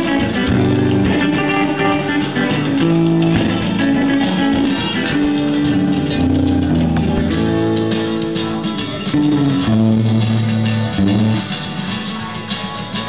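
Electric guitar played through an amplifier: a riff of held, ringing notes that change pitch every half second or so, thinning out and getting a little quieter near the end.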